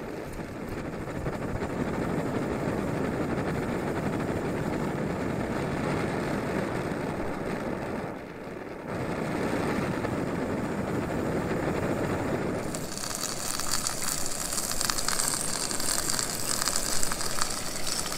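Optimus Nova multi-fuel pressure stove burner running with a steady rushing hiss, its fuel now vaporising to give a blue flame; the noise dips briefly about eight seconds in. From about two-thirds of the way through, a loud high sizzle joins it as a steak fries in the pan on the burner.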